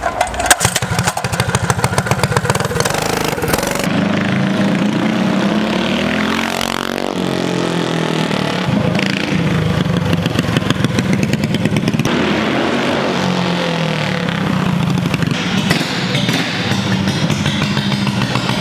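Built 20 horsepower Tillotson single-cylinder engine on a minibike, started about half a second in and then running hard as the bike is ridden. Its pitch dips and climbs again about six to seven seconds in.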